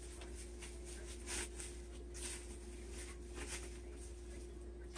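Faint rustling and crinkling of clear plastic packaging being handled in short, scattered bursts, over a faint steady hum.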